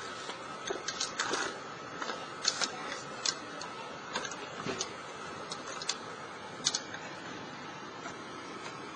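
Irregular sharp clicks and knocks as a Boston Dynamics hydraulic quadruped robot steps across loose concrete cinder blocks, its feet striking and shifting the blocks, over a steady hiss and faint whine.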